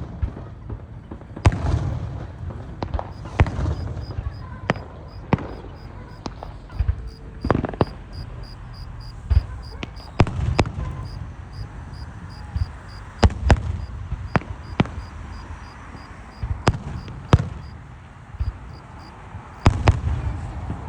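Fireworks going off: irregular sharp bangs and cracks, some loud and close together, over a low rumbling background.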